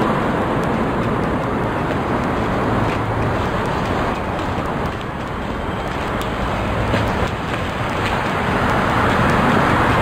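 Steady road traffic noise from cars passing on the adjacent road.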